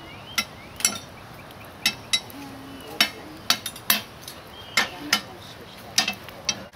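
A metal fire tool clinking against an iron fire grate while coals are raked and stirred, about a dozen sharp metal clinks at irregular intervals.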